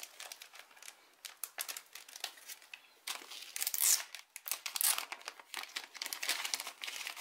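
A clear plastic packet and a paper instruction leaflet from a small bead-weaving kit crinkling and rustling as they are unwrapped by hand, with many small clicks and crackles. The rustling gets louder about three seconds in.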